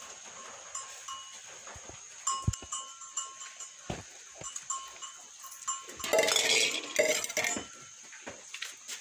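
A calf bleats once, loudly, for about a second and a half, a little past the middle. A small bell tinkles on and off throughout.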